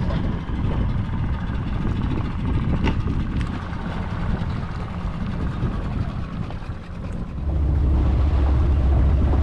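Outboard motor of a small aluminium boat running under way, with rushing water and wind noise; about seven seconds in it becomes louder and steadier as the boat gets up on the plane.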